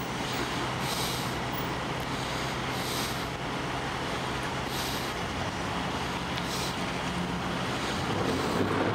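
A vehicle engine running steadily at idle, a low even hum, over outdoor traffic noise.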